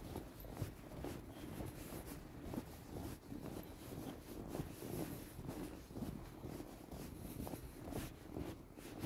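Footsteps crunching in deep snow, a steady run of soft scuffing steps from people and small dogs walking through it.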